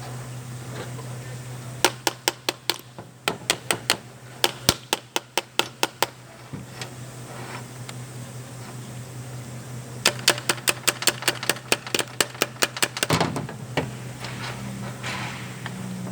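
A ratchet wrench clicking in two runs of quick, sharp clicks, about five a second, one early and one past the middle, over a steady low hum.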